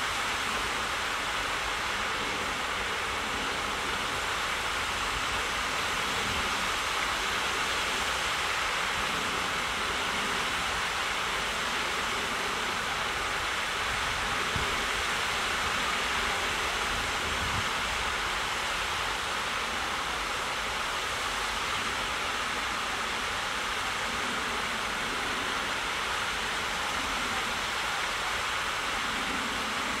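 Steady, even rush of running water, with no bird calls.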